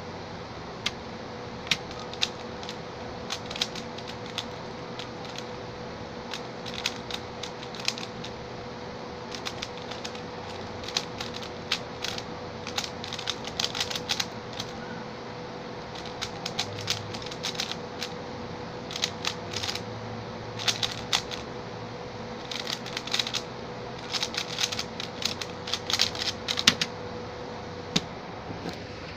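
A Xin Lexin stickerless 3x3 speed cube being turned fast during a solve: irregular runs of quick plastic clicks and clacks, sparse at first and densest near the end, then one single sharp click.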